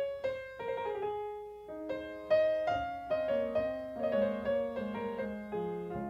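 Solo piano playing a slow introduction. It starts with single struck notes, and from about two seconds in lower notes fill it out into chords.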